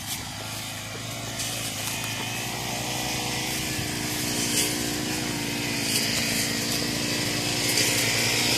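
Four-stroke brush cutter engine running steadily at working speed, growing gradually louder.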